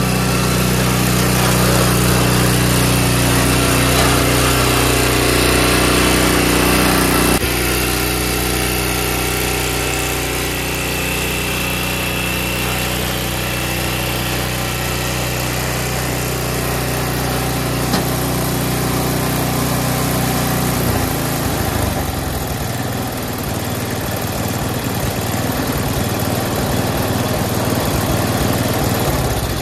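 Small engine of a Craftsman Tracdrive track-drive snowblower running steadily, its note shifting about two-thirds of the way in.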